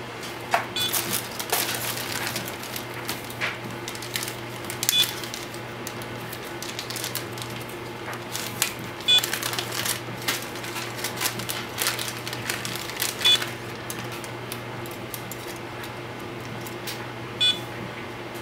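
A plastic parts bag crinkling and small plastic parts clicking as they are handled. Behind it, a short electronic beep repeats about every four seconds from the powered-up FPV racing quad, which sits with its battery connected and is not bound to a radio.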